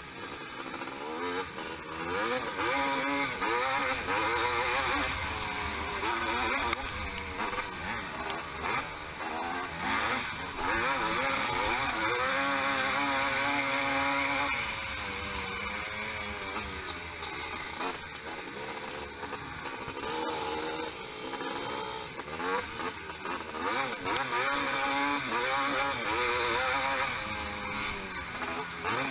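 Motocross dirt bike engine heard from the rider's own bike, revving up and dropping back again and again as it accelerates and shifts round the track.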